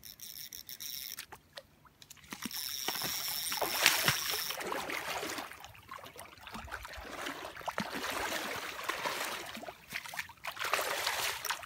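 Water splashing and sloshing at the river's edge as a large hooked catfish thrashes while being reeled in to land. The splashing comes in uneven surges, loudest a few seconds in.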